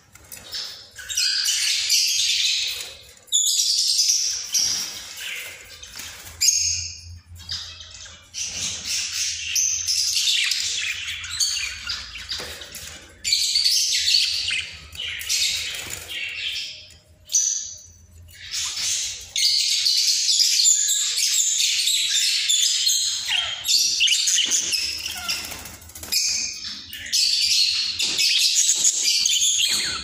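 Budgerigars warbling and chattering, a busy high-pitched stream of chirps and squawks that comes in runs of a few seconds with short breaks between.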